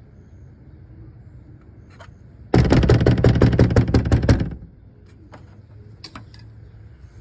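A locked door rattled and banged with rapid knocks, roughly eight a second for about two seconds, starting about two and a half seconds in. A few light clicks follow.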